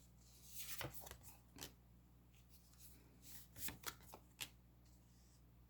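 Faint rustles and flicks of tarot cards being shuffled and drawn, in two short clusters: one about half a second in, another about three and a half seconds in.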